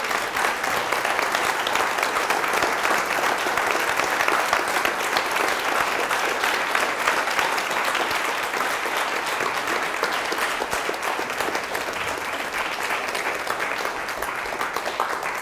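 Audience applauding: dense, steady clapping from a roomful of people, easing slightly near the end.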